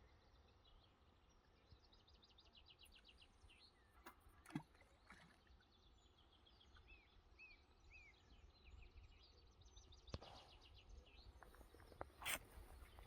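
Faint waterside quiet with small birds singing: quick trilled phrases and three short curving chirps in the middle. A few soft knocks and clicks come about four seconds in, after ten seconds, and near the end.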